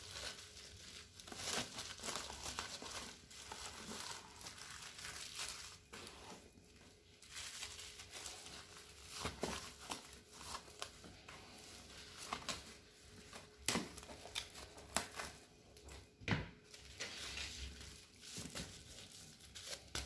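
Plastic wrap crinkling and rustling as hands roll and wrap a soft log of sausage mixture in it, with a few sharper crackles.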